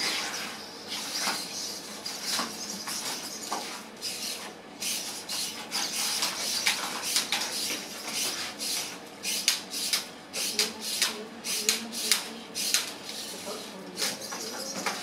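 Small humanoid fighting robots moving and grappling: the whir of their servo motors and their metal feet clattering on the ring mat, in many quick, irregular clicks and scrapes.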